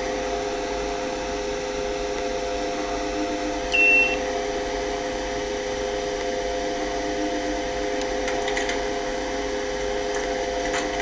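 A steady electrical or mechanical hum made of several fixed tones. About four seconds in, one short high beep sounds.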